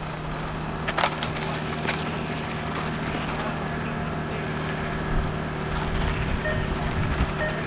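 Brushless electric motors of 1/8-scale HobbyKing HKM-390 RC motorcycles running around a tarmac track, under a steady background hum, with two sharp clacks about one and two seconds in.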